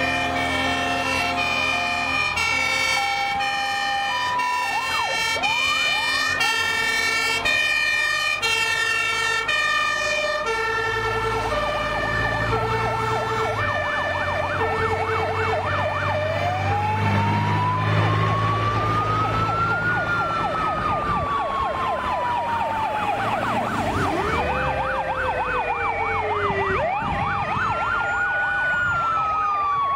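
Fire engines and emergency vehicles passing in a line with sirens sounding: several two-tone hi-lo sirens overlap at first, then slow rising-and-falling wail sirens and a fast yelp take over about halfway through. The diesel engine of a passing Star fire truck is heard under the sirens in the middle.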